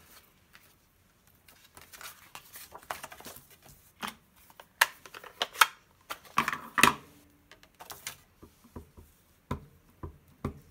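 Cardstock rustling and sliding on a craft desk, with clicks and knocks as an ink pad case is handled. Near the end a stamp on a clear block is tapped onto the ink pad a few times.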